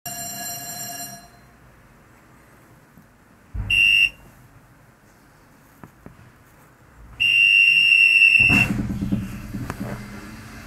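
An aerial cable car's electric departure buzzer sounds three times: a one-second beep, a short beep about four seconds in, and a longer, loudest beep about seven seconds in. As the last beep stops, there is a jolt and a low rumble as the cabin starts moving up the rope.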